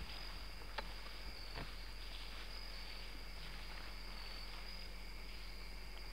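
Crickets chirping steadily over a low hum, with a couple of faint clicks in the first two seconds.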